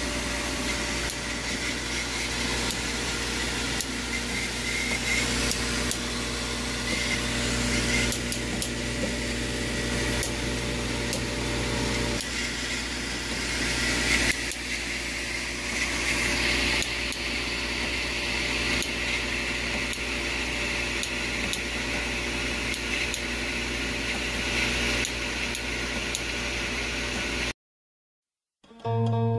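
Steady mechanical hum and hiss with a few faint clicks, cut off abruptly near the end, just before plucked-string music begins.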